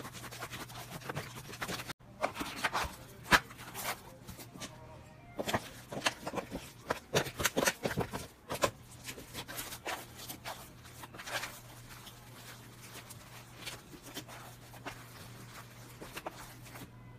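Hands kneading, poking and pressing slime in a bowl, making a run of sharp crackly pops and clicks that are thickest in the first ten seconds or so and sparser after. A low steady hum lies underneath.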